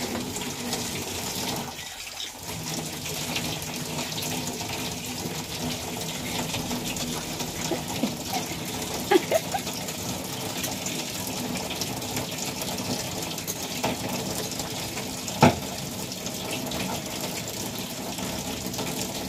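Water running steadily from a tap onto a metal pan and sink while a steel tumbler is scrubbed under it, with a couple of sharp clinks.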